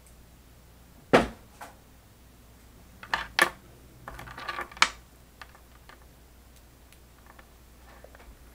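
Sharp clicks and knocks of small objects being handled on a desk. The loudest comes about a second in and a cluster follows around three to five seconds, then lighter scattered ticks.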